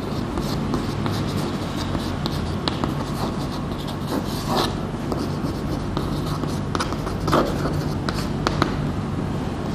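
Chalk writing on a blackboard: short scratching and tapping strokes as letters are formed, over a steady low hum.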